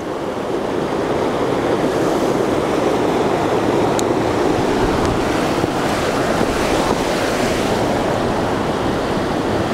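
Steady rush of river water flowing over rocks, with a single faint click about four seconds in.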